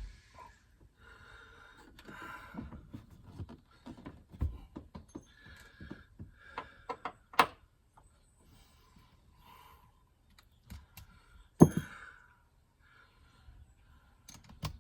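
Hands and tools working on a car's plastic interior trim: a run of small clicks, taps and scrapes, with two louder knocks, one about seven seconds in and one near twelve seconds.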